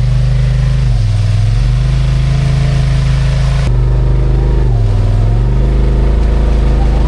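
Side-by-side UTV engine running loud and steady, its revs rising and falling several times. The tone changes abruptly about three and a half seconds in.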